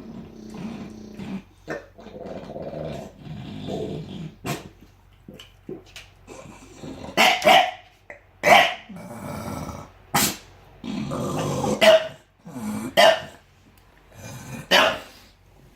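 Bulldog growling low for the first few seconds, then barking sharply several times, one to two seconds apart, with growls between the barks.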